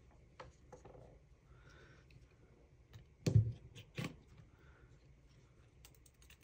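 Faint clicks of tiny screws and metal brackets being handled, then a sharp knock about three seconds in as a precision screwdriver is set down on the wooden workbench, followed by a second, lighter knock.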